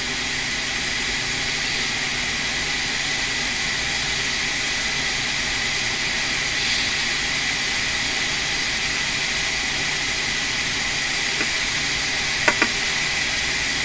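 Hot air rework station blowing with a steady hiss while heating the solder to lift corroded surface-mount chips off a liquid-damaged logic board, with two light clicks near the end.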